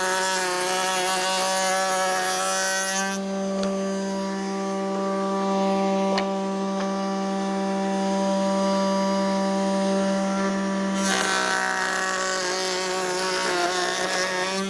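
Table-mounted router spinning a 45-degree lock miter bit, running with a steady whine. It cuts through hardwood stock twice, for about three seconds at the start and again over the last few seconds, and runs free in between: the final passes of a lock miter joint.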